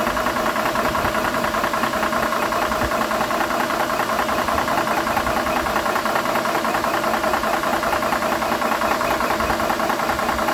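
Airmax portable high-pressure PCP air compressor running steadily with its cooling fan on, pumping air into a PCP air rifle, with a fast, even mechanical pulse.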